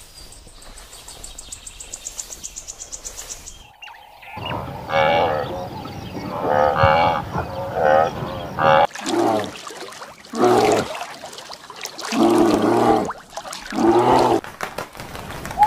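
A run of animal calls: a faint, fast, high trill, then wavering pitched calls, then about five separate lower, moo-like calls, each under a second long.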